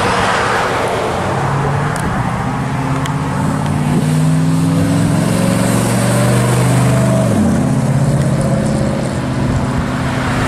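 1957 Chevrolet's engine and exhaust accelerating away, its pitch climbing for several seconds, then dropping sharply about seven seconds in at a gear change before it pulls on steadily.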